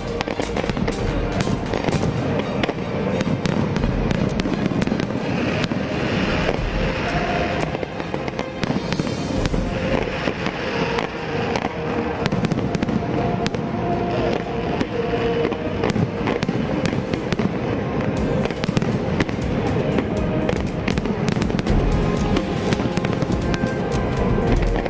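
Fireworks exploding and crackling in a rapid, continuous barrage, with music playing underneath.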